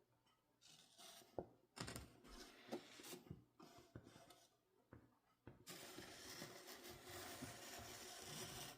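Large paper posters being handled: scattered crinkles and taps, then a continuous paper rustle over the last three seconds.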